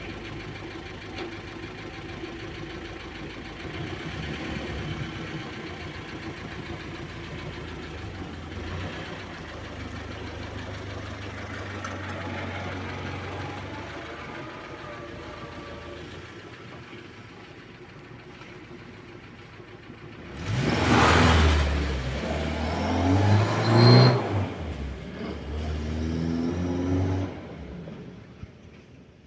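Carburetted engine of a VAZ-2101 Zhiguli running on the road. About twenty seconds in it revs up hard, climbing in pitch twice, then drops away near the end.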